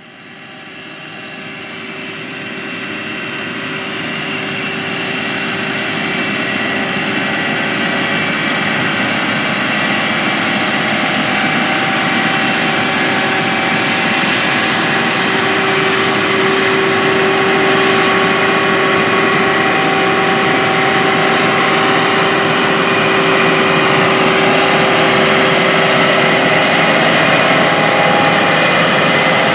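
Large diesel farm machinery running steadily in the field, with a steady whine over the engine noise. The sound fades in over the first several seconds.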